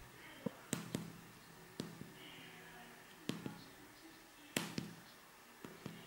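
Fingers pressing the keys of a 4x4 membrane keypad to enter a code, heard as about ten faint, irregular soft clicks and taps.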